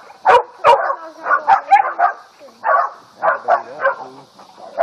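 Four-month-old puppies barking in a rapid string of short, high barks, baying at a hog.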